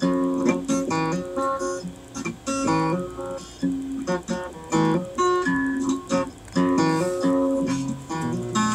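Acoustic guitar strummed in chords in a steady rhythm, with single picked notes between the strums.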